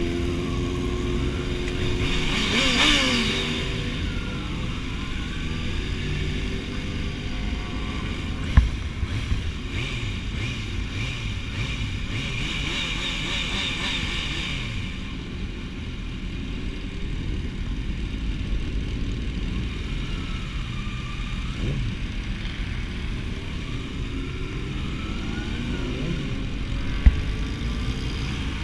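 Sport motorcycles riding, their engines revving up and down in pitch over a steady low rumble. Two sharp knocks: one about a third of the way in and one near the end.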